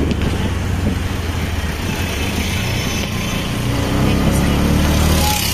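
Engine of a TVS auto-rickshaw taxi running steadily as it drives through town traffic, heard from inside the open cabin. It grows a little louder about four seconds in.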